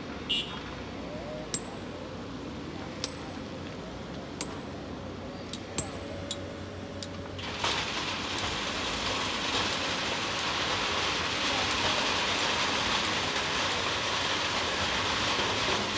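Hydraulic excavator loading a dump truck, its engine running underneath. In the first half there are sharp metallic clinks of stones striking metal. About halfway in comes a steady rushing hiss of sand and gravel pouring into the truck.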